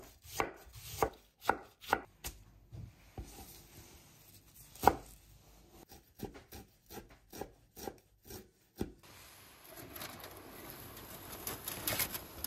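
Knife chopping food on a cutting board, about two even strokes a second at first, then slower and irregular, with one louder chop about five seconds in. The chopping stops near nine seconds, leaving a soft steady hiss with a few light clicks.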